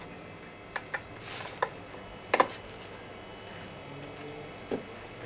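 Scattered light clicks and taps of multimeter probes and wires being handled at a control box's terminals, the loudest a quick double tap about two and a half seconds in, with a short rustle before it.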